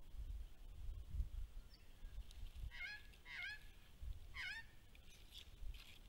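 Three short bird calls in the second half, each sliding down in pitch, with two close together and a third about a second later, over a low steady rumble.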